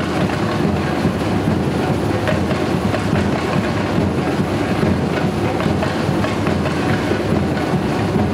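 Samba bateria playing a steady rhythm: surdo bass drums and smaller drums under the rattle of metal ganzá shakers.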